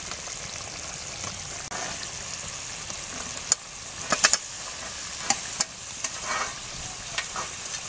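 Masala gravy sizzling in a kadai as paneer cubes are tipped in from a steel bowl, with sharp clinks of metal against the pan, the loudest cluster about four seconds in.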